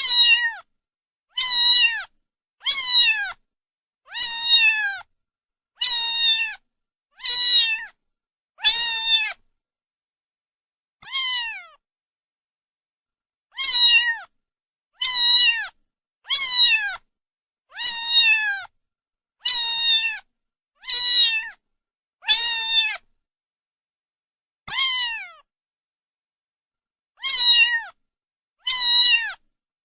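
A cat meowing over and over, about one short, falling meow every second and a half, with a couple of longer pauses between runs.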